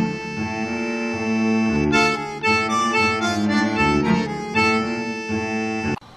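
Reedy music from a free-reed instrument, harmonica-like, playing sustained chords that change every half second or so. It cuts off abruptly near the end.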